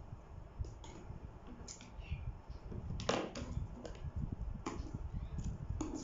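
Paper being handled and cut: about six scattered sharp clicks and rustles, the loudest about three seconds in, over a low steady rumble.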